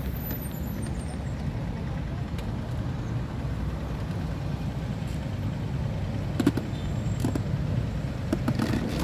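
Steady low rumble of road traffic on a highway, with a few short knocks about six and a half seconds in and again near the end.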